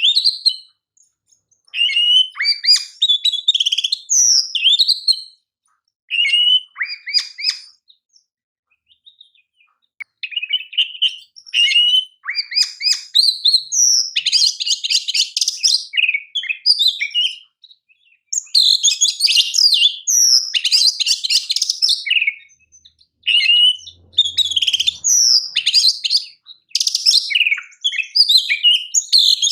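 Oriental magpie-robin singing loud, varied phrases of whistles and chirps with rapid rattling trills, broken by short pauses between phrases.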